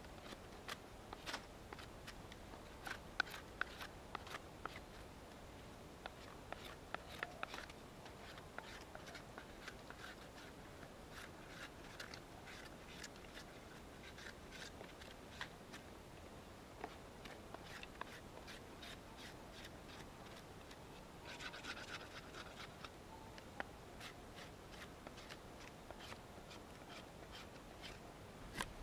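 Yakut knife cutting a green-wood stick: faint, irregular short scrapes and clicks as shavings are taken off, with a denser run of scraping strokes about two-thirds of the way through.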